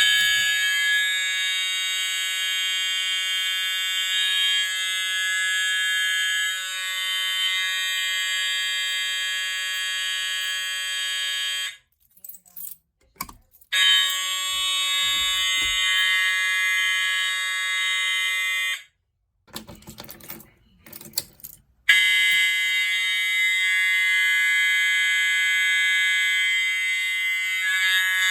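Fire alarm horn sounding one steady, continuous tone. It cuts off about twelve seconds in and again about nineteen seconds in, starting up again after two or three seconds each time. A sharp knock falls in the first pause.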